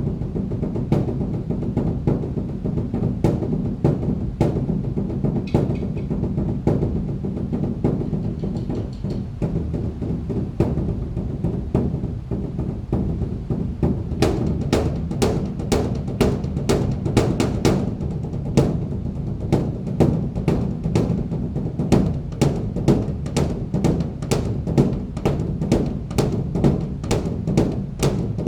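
Large Buddhist temple drum (beopgo) beaten with sticks over a steady low resonance. The strikes are irregular at first, then from about halfway turn into a fast, even roll of about three to four strikes a second.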